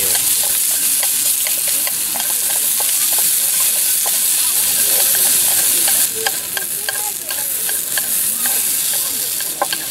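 Sliced new onions sizzling in a frying pan as they are stir-fried with chopsticks, the chopsticks clicking and scraping against the pan. The sizzle grows quieter about six seconds in.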